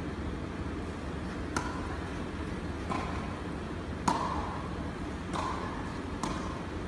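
Tennis rally: a tennis ball struck back and forth with rackets, five sharp hits a little over a second apart, the loudest about four seconds in, each echoing briefly in the hall.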